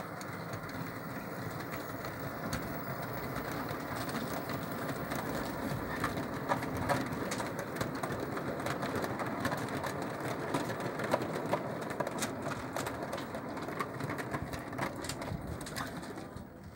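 O gauge model goods train rolling past on garden-railway track: a steady running noise of wheels on rail, with many quick clicks as the wagons' wheels cross rail joints and points. The sound dies down near the end as the last vehicle goes by.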